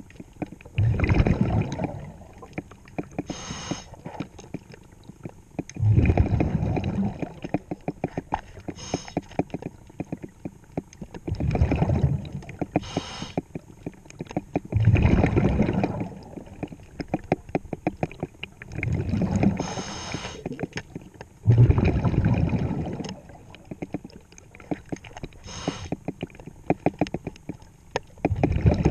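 Diver breathing underwater through a regulator: a short hiss on each inhale, then a louder rushing burble of exhaled bubbles lasting a second or two, repeating several times. Fine clicks crackle throughout.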